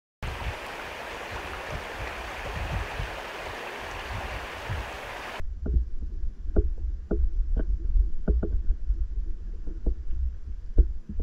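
Shallow river water running, an even rushing hiss, which cuts off abruptly about five seconds in. It gives way to the river heard underwater: a low rumble of current with irregular sharp clicks, roughly two a second.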